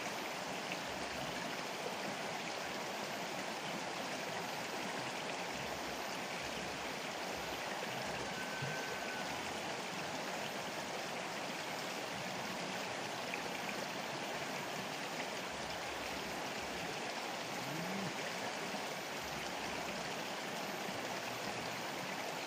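River water flowing steadily, an even rush and burble of current over the riverbed.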